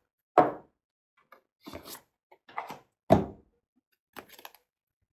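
A tarot card deck and its cardboard box being handled on a tabletop. There are two solid thuds, about half a second and three seconds in, with lighter taps and card rustles between them.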